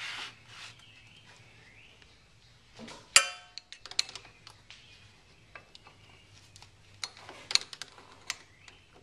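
Metal clinks from drum brake hardware and hand tools being handled while the shoes' hold-down springs and cups are fitted. There is one ringing metallic clang about three seconds in, then scattered small clicks and taps.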